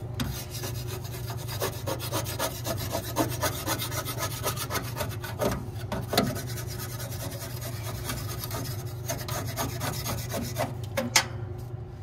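Edge of a torpedo level scraped rapidly back and forth on a sheet-metal plate, rasping off the old inducer-motor gasket from around the flue opening. The strokes come in quick succession over a steady low hum, pause briefly near the end, and a sharp tap follows.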